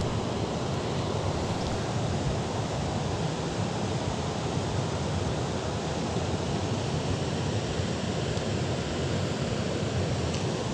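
Steady rush of river water pouring over a weir, an even hiss with no breaks.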